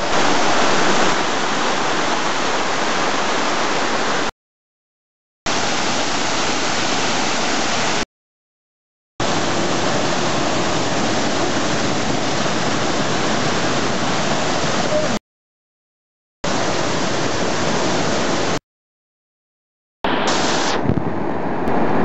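A waterfall cascading over rocks into a pool: a steady rush of falling water. It cuts out abruptly into complete silence four times, for about a second each time. After the last gap it comes back with less hiss.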